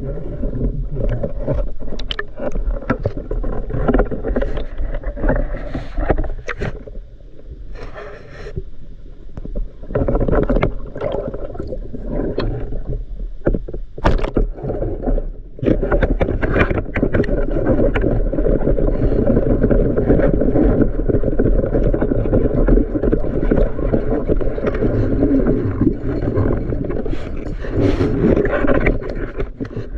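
Water sloshing and gurgling close to the microphone, with scattered knocks and scrapes, louder and steadier in the second half.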